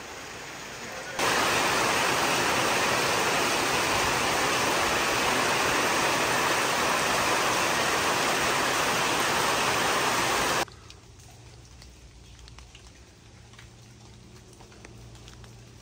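Heavy tropical downpour pouring onto flooded pavement, a steady dense hiss of rain that jumps louder about a second in. Near the end it cuts off suddenly to a much quieter background with faint scattered ticks.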